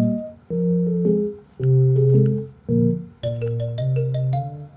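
Light background music: sustained keyboard chords over a low bass line, in phrases with short gaps between them. Short high notes join about three seconds in.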